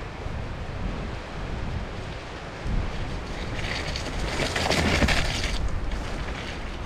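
Wind buffeting the microphone, a steady low rumble, with a louder hissing rush about three and a half to five and a half seconds in.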